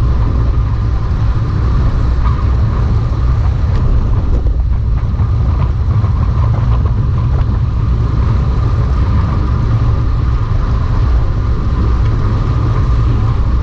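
Loud, steady wind rushing and buffeting over a camera microphone on a moving road bicycle, with a steady hum sitting above the rumble.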